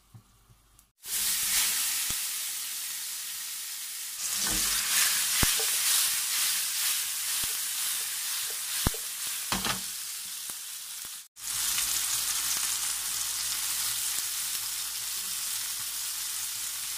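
Garlic and halved cherry tomatoes sizzling in olive oil in a hot non-stick frying pan. The sizzle starts suddenly about a second in, with a few sharp clicks and knocks in the middle as the pan is stirred.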